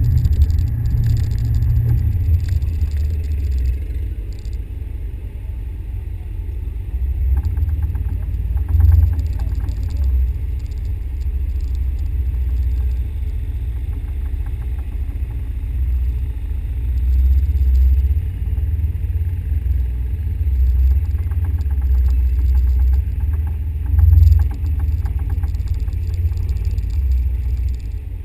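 Loud, low vehicle rumble that swells and eases, with light rattling over it.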